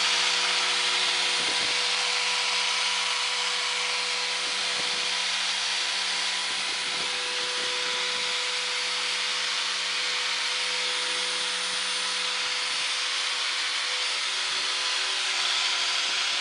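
Harbor Freight 4.5-inch angle grinder with a cutoff wheel running steadily at speed, a constant high motor whine over hiss.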